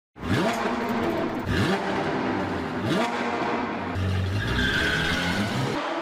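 Car engine revving up in three rising sweeps about a second and a half apart, then a high tyre squeal over a deep rumble. The engine sound cuts off just before the end.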